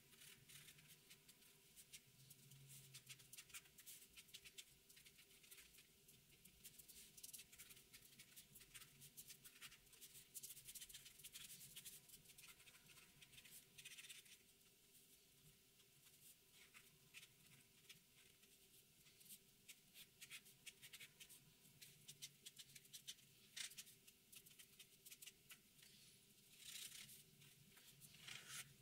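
Faint scratching of a black marker tip on paper in many quick, short strokes, coming in clusters, as black areas of an ink drawing are filled in.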